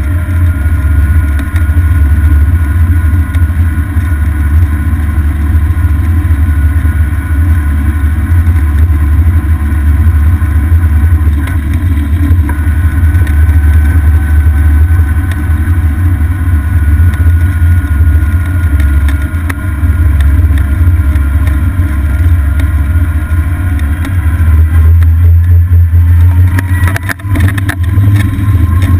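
Golf cart driving along pavement, heard from a camera mounted on the cart: a loud, steady low rumble of wind and road noise, with a faint thin whine above it. A few knocks near the end.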